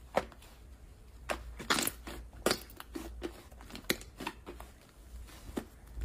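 Soft pink slime squeezed and folded by hand, giving off irregular sticky clicks and crackling pops, about one or two a second.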